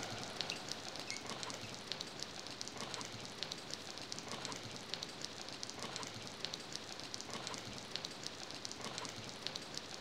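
Steady rain, with many small drops ticking irregularly over the hiss.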